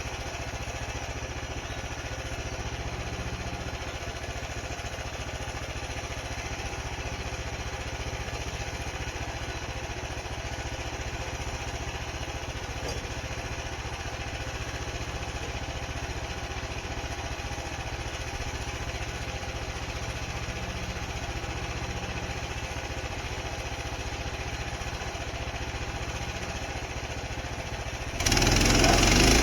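Portable band sawmill's small gasoline engine running steadily at a low speed. About a second before the end it turns suddenly much louder and harsher as the mill comes up to full working speed.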